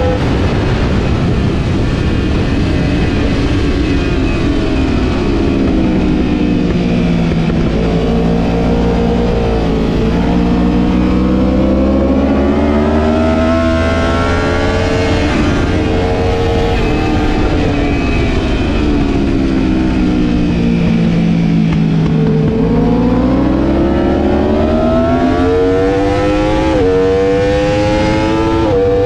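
Sport motorcycle engine at speed on a racetrack. The engine note falls as the rider slows and climbs again as he drives out, twice, with short step-downs in pitch at the gear changes near the end. A steady rush of wind noise runs underneath.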